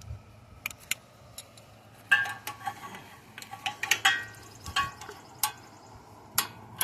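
10mm wrench working a bolt on a small engine's sheet-metal shrouding: irregular metallic clicks and clinks, sparse at first and busiest from about two seconds in.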